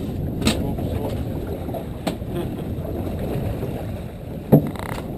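Steady low rumble and wash of a fishing boat at sea, with wind on the microphone. Sharp knocks on the boat land about half a second in, about two seconds in, and loudest about four and a half seconds in.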